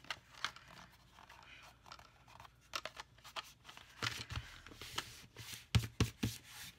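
Hands handling a glued cardstock cutout: paper rustling and scraping with small ticks. A few dull thumps come about four and six seconds in, as palms press the layers down flat against the table.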